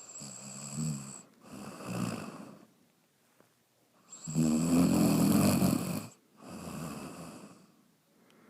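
A sleeping pet snoring through its snout: four snoring breaths with a low buzz, the third, about four seconds in, the longest and loudest.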